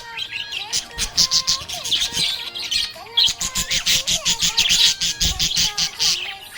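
Budgerigar chattering: bursts of rapid, high chirps, with short squawks and warbling glides mixed in.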